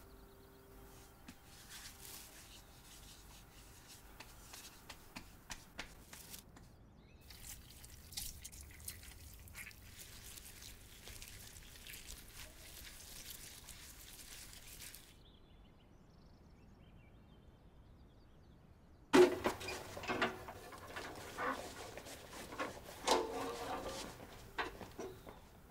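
Wet clay being pressed and smoothed by hand over a large fish, with faint crackling and scraping. After a few quiet seconds come louder knocks, scraping and rustling as the heavy clay-wrapped fish is moved into a brick oven.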